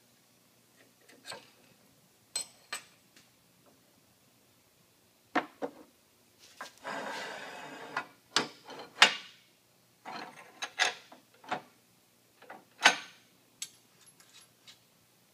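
Steel bearing-puller parts being handled and fitted: scattered metal clicks and knocks, with a scraping rub lasting about a second near the middle.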